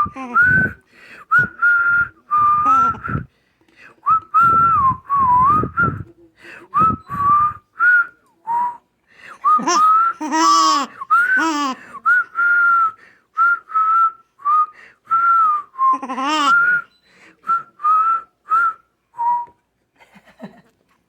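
A person whistling a wandering tune in many short phrases. Brief bursts of laughter break in about halfway through and again a few seconds later.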